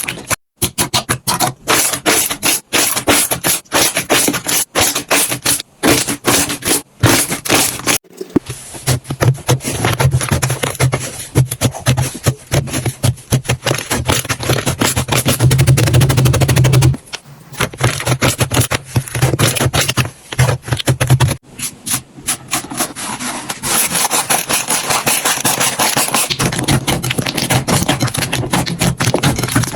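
Slime being squeezed, poked and stretched by hand, giving rapid crackling clicks and pops as air pockets burst. Several clips follow one another, with the sound changing suddenly about 8, 17 and 21 seconds in.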